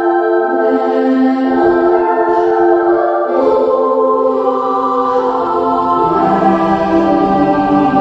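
Background music of a choir singing slow, long-held chords, with lower voices or notes coming in about six seconds in.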